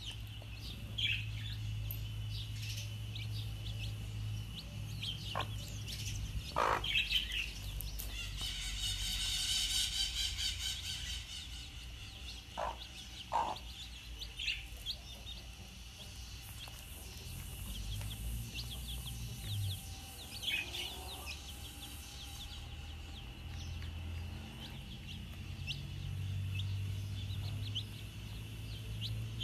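A brood of chicks peeping: many short, high chirps scattered throughout, thickest about a third of the way in, over a low steady hum.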